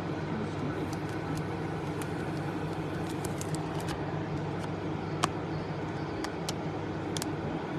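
Steady low hum with scattered light clicks and ticks of trading cards and pack wrappers being handled, one sharper click about five seconds in.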